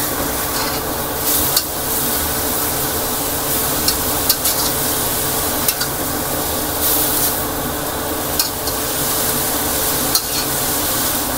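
Shredded young papaya sizzling in a hot wok while a spatula stir-fries it, with frequent short scrapes and clicks of the spatula against the wok.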